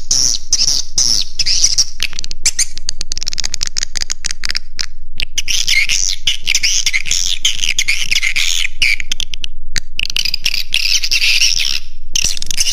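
Edible-nest swiftlets twittering in a dense, continuous stream of high chirps, mixed with many sharp clicks. The chirping breaks off briefly about five seconds in and again near the end. This is a swiftlet roosting-call recording, the kind played to lure swiftlets into a nesting house.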